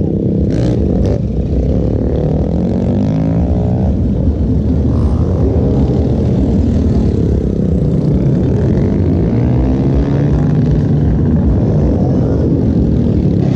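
Motorcycle engines revving in repeated surges, their pitch rising and falling as bikes ride along the street during wheelie stunts.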